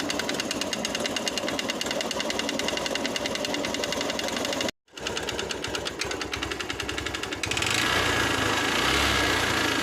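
Honda CB Shine's single-cylinder 125 cc engine running at low revs with a rapid, even mechanical ticking: the abnormal engine noise being diagnosed, put down to tappet or piston wear. It breaks off briefly about halfway, and about three-quarters in the sound turns louder and fuller.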